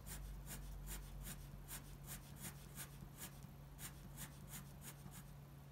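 Ink pen scratching across paper in quick, short hatching strokes, about three or four a second, faint.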